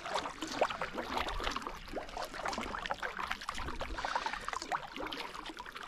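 Kayak being paddled across choppy water: irregular splashing and trickling from the paddle blades, with small waves lapping at the hull.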